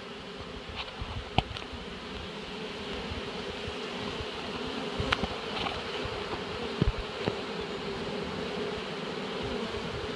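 A swarm of honeybees buzzing steadily as they crowd into a hive box entrance: a dense hum that grows slowly louder, broken by a few brief knocks.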